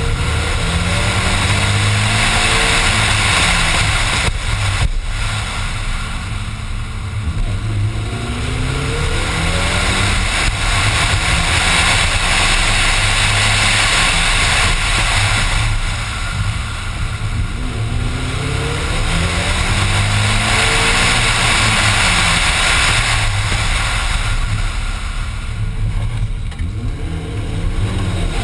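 Competition car's engine heard on board at full effort, pitch repeatedly climbing and dropping as it accelerates and shifts, with brief easing-off between loud pulls.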